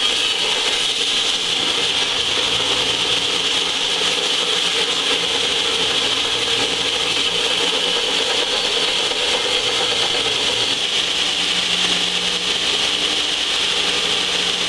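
Large heavy-duty belt sander running with a warped cast exhaust manifold pressed against its 60-grit belt: a loud, steady abrasive grind as the manifold's warped flange face is ground flat.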